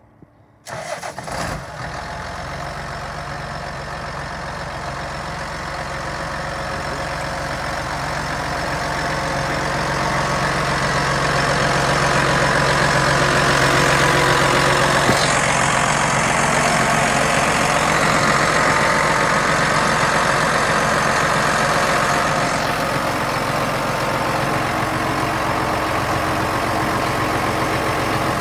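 John Deere 8000-series tractor's six-cylinder diesel engine starting abruptly about a second in, catching at once, then idling steadily, growing louder over the next dozen seconds.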